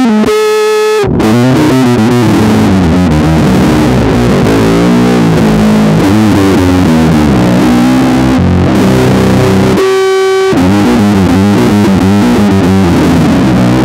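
Electric bass guitar played fingerstyle along with a loud, distorted metal track. Twice the full band drops away briefly, leaving a single held note: once near the start and once about ten seconds in.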